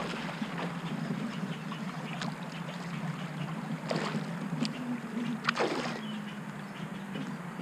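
Fishing kayak under way on a Torqeedo electric outboard: a steady low motor hum with water rushing along the hull. A few sharp clicks sound through it, and a quick falling sweep comes about two-thirds of the way through.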